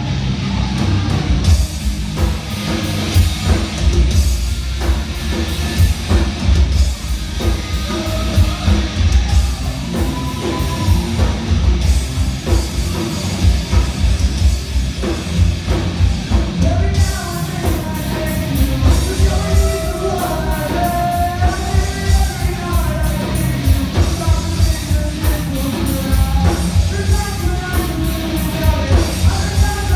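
Live rock band playing loudly, with a singer coming in about halfway through.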